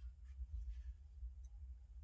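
Quiet handling of a disassembled out-the-front knife as its plastic handle halves are fitted together around the blade assembly: a faint scrape about half a second in and a few soft ticks, over a low steady hum.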